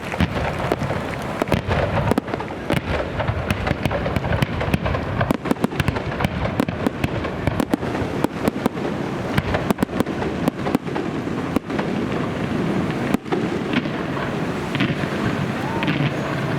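Fireworks display going off continuously: many rapid crackling bangs and explosions over a steady rumble.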